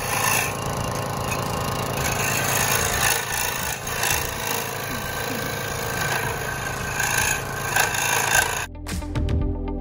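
Benchtop scroll saw running and cutting a thin wooden cutout, a steady rasping noise of the blade going through the wood. Near the end the sawing gives way to background music with a beat.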